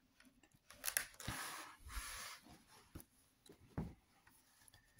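Pages of a large illustrated hardcover book with glossy paper turned by hand: a soft rustling sweep of paper about a second in, then a few light taps of paper and fingers.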